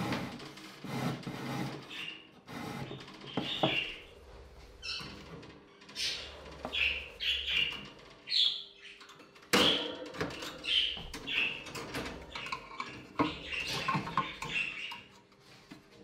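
A plastic bird drinker and the cage's wire bars clicking and rattling as the drinker is fitted to the cage front and a hand works through the door, with short high chirp-like squeaks between the knocks.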